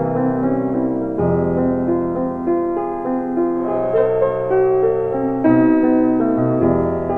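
Background piano music: a gentle melody of held notes over slow-changing bass notes.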